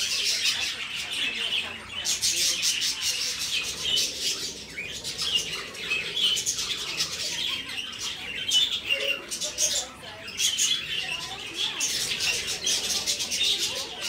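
A flock of budgerigars chattering continuously, a dense mix of chirps, warbles and short squawks.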